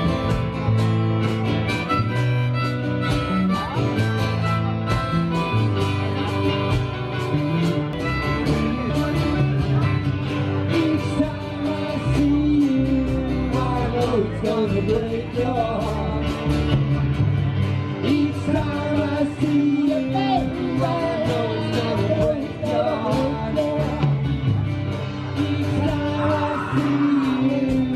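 Live amplified band music: harmonica played into a microphone over electric guitar and bass.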